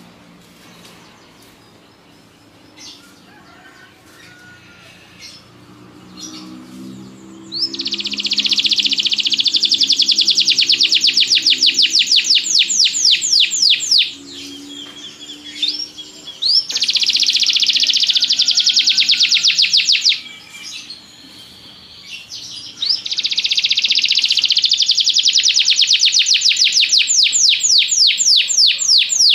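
Domestic canary singing: a few faint chirps, then about seven seconds in it breaks into rapid trills of closely repeated notes, in three long runs separated by short pauses.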